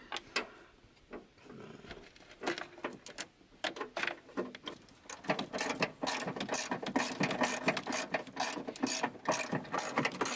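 Ratchet wrench clicking as a bolt is tightened: scattered clicks at first, then rapid, steady ratcheting from about halfway in.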